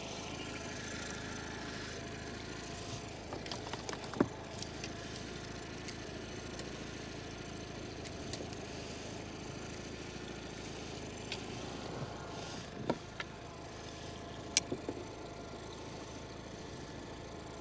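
Boat engine idling steadily, with a few short sharp clicks or knocks about four, thirteen and fourteen and a half seconds in.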